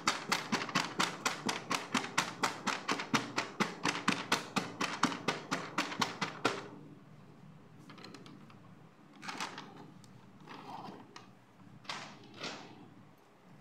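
Fingertips tapping quickly and evenly on boxed toys (a foil gift-wrapped box and a boxed doll), about five to six taps a second, stopping about six and a half seconds in. After that come a few soft rustles and brushes of hands against wrapping and plastic.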